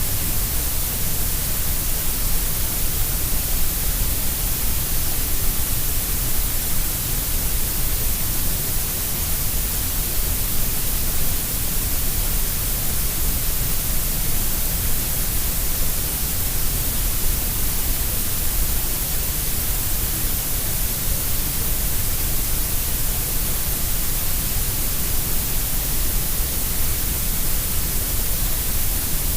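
Grey noise: a steady, unchanging hiss, heavier in the deep lows and the highs than in the middle range.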